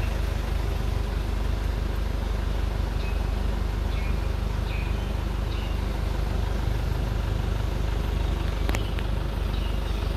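Steady low outdoor rumble with a few faint, short high chirps scattered through it and a single sharp click near the end.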